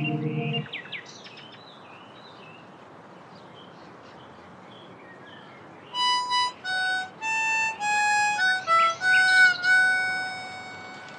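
Background score: a low chord cuts off just after the start, leaving a few seconds of faint high chirps over hiss. About six seconds in, a solo melody of held, clear notes begins.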